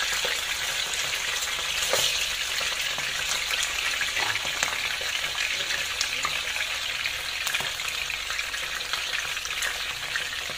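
Pieces of pomfret shallow-frying in hot oil in a nonstick pan: a steady sizzle with scattered crackling spatter pops, one of them louder about two seconds in.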